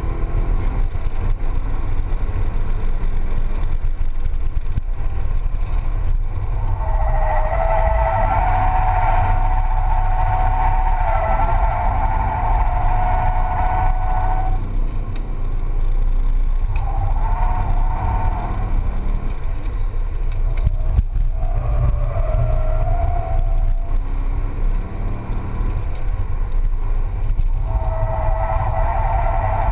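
Corvette Z06's V8 running hard, a constant low rumble heard from inside the cabin, while the tyres squeal as the car drifts: one long wavering squeal lasting several seconds about a quarter of the way in, then three shorter ones, the last near the end.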